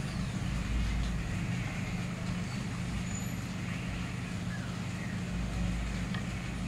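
Steady low mechanical hum with a deeper rumble underneath that swells and eases.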